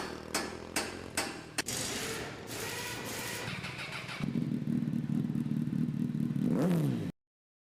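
Motorcycle engine: a few sharp clicks about every half second, then running, growing louder about four seconds in and rising in pitch as it revs before cutting off suddenly.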